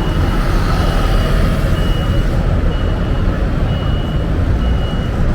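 An electronic beeper sounds a short high beep about once a second, over steady street traffic rumble and wind noise.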